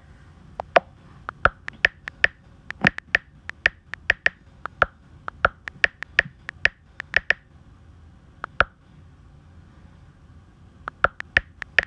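Typing on an iPad's on-screen keyboard: a quick, uneven run of short clicks, one per key. The clicks pause for about two seconds near the end, then start again.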